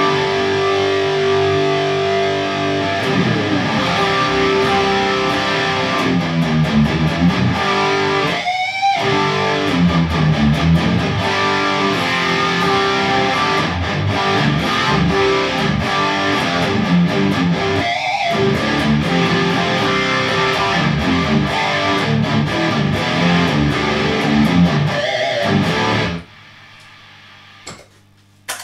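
Distorted electric guitar, a Kramer Pacer played through Peavey valve amps, playing rock riffs and chords thickened by the stereo doubling of a Boss SE-50 rack effects unit. The playing breaks twice with short sliding squeals, then stops abruptly near the end, leaving only a low amp hum.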